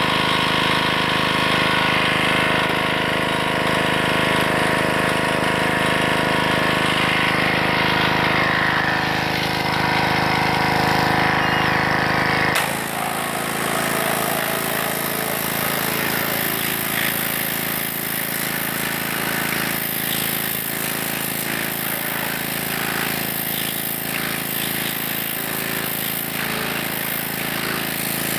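Pressure washer running steadily. About twelve seconds in the sound changes abruptly and a hissing water jet plays over a crappie on a fish-cleaning board, blasting off its scales.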